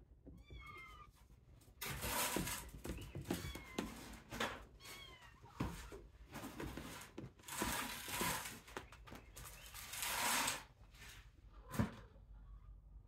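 Kittens mewing in thin, high-pitched cries, mixed with bursts of scratching and rustling as they claw at and climb the playpen's mesh and fabric sides. There is a single sharp knock near the end.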